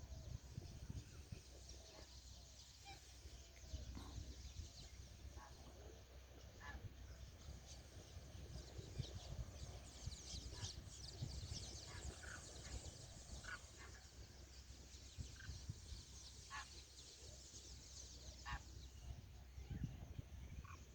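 Faint, scattered short bird calls from a flock, with a low rumble underneath.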